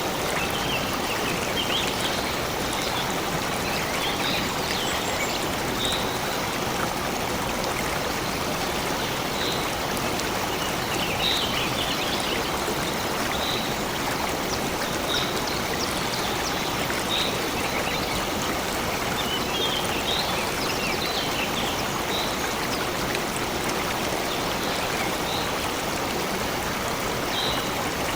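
A stream flowing steadily, with a bird giving short high chirps every second or two over it.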